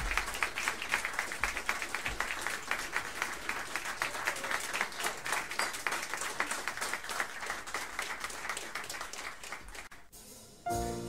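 A small live club audience applauding at the end of a tune, the clapping thinning out near the end. After a brief hush, a few piano notes begin just before the end.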